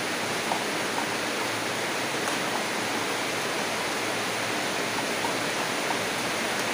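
Steady, even hiss of background noise with a few faint ticks scattered through it.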